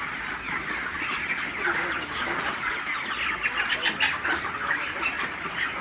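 A large flock of 26-day-old broiler chickens calling all at once, a steady mass of overlapping calls, with a few quick clicks a little past halfway.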